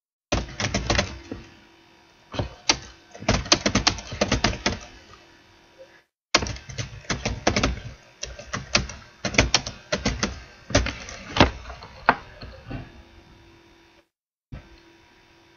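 Computer keyboard typing in quick irregular runs of keystrokes, with a brief pause about six seconds in, stopping about twelve seconds in.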